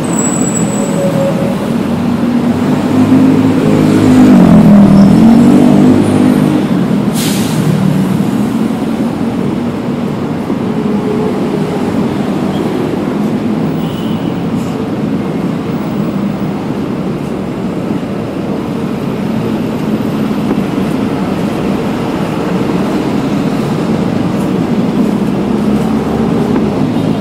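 Heavy street traffic: engines of buses and cars running close by, loudest as one vehicle passes about four to six seconds in, with a single sharp click shortly after.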